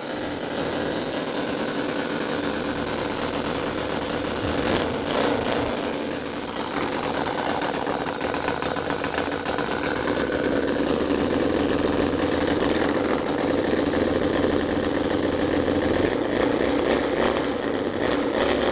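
CISON FG-VT9 9cc four-stroke V-twin model petrol engine running steadily, with a few brief clicks about five seconds in and again near the end.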